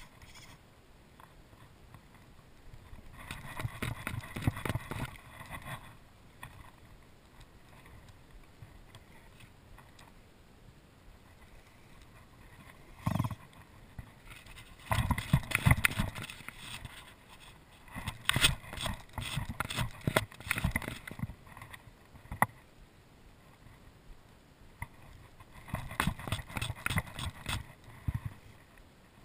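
Several bursts of rapid clicking and rustling, a few seconds each, from the fly reel and line being worked while a hooked redfish is played from a kayak.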